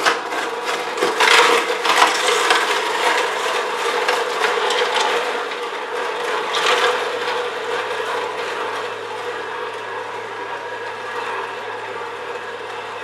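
Omega VRT352 vertical slow juicer's auger crushing carrots pushed down its feed chute: dense cracking crunches over a steady low motor hum. The crunching thins out after about seven seconds and the running hum remains.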